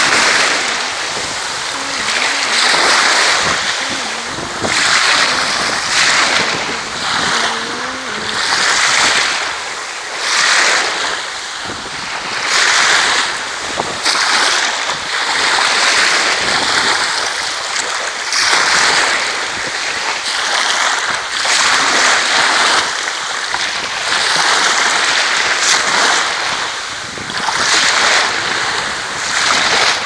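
Small sea waves washing over sandy shallows, the wash swelling and easing every second or two, with wind buffeting the microphone.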